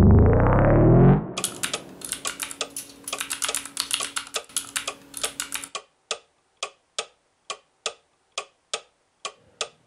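A loud rising sweep of tone for about the first second, then rapid clatter of laptop keyboard typing. About halfway through it thins to slower single key clicks, roughly three a second.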